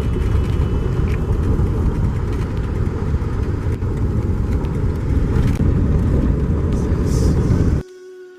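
Steady road and engine noise of a car heard from inside the cabin, a loud low rumble that cuts off abruptly near the end. Quiet music with held notes follows.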